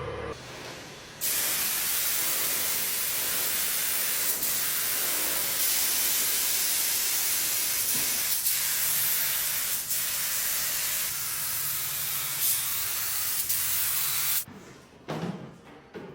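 Steady spraying hiss, like compressed air or paint leaving a spray nozzle, starting about a second in and cutting off near the end, followed by a few light knocks.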